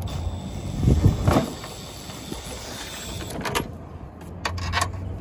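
Cordless ratchet backing out a headlight mounting bolt: a steady motor whine that stops after about three seconds, with two knocks about a second in. Then several sharp metal clicks as the freed bolt and socket extension are handled.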